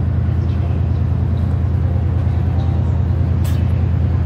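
Steady low rumble of diesel train engines running, with a short click about three and a half seconds in.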